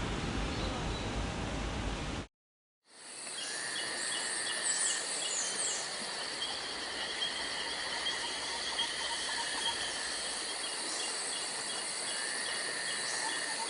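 Outdoor ambience of an insect chorus: steady high buzzing with a repeating pulsed chirping, and a few short sweeping bird calls about four to five seconds in. It follows a brief dropout after a rougher, noisier opening stretch.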